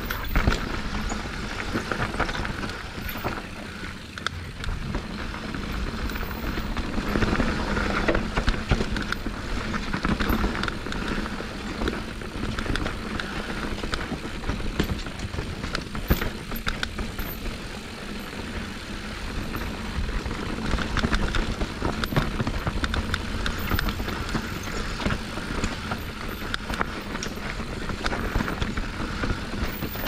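Mountain bike descending a rocky downhill trail: a continuous rush of wind across the camera microphone, tyres rolling over rock and dirt, and frequent small knocks and rattles from the bike.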